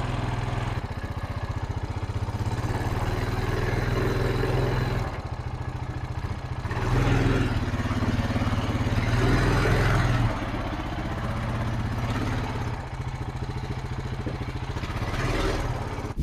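Tractor engine running, its speed and level rising and falling a few times as it is throttled up and back.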